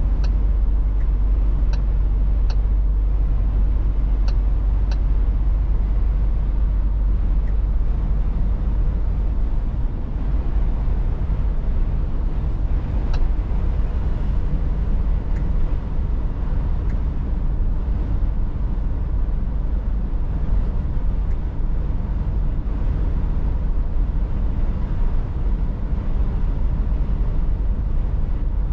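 Steady low rumble of a Scania S450 lorry's 13-litre straight-six diesel, with tyre and road noise, heard from inside the cab while cruising. A few light clicks come in the first five seconds.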